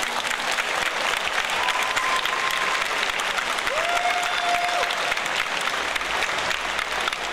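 Large arena crowd applauding and cheering, dense clapping throughout, with two long held notes rising out of the crowd partway through.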